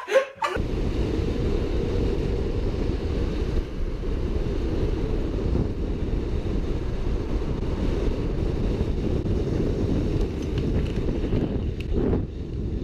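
A steady low rumble of wind buffeting the microphone, starting about half a second in and stopping near the end.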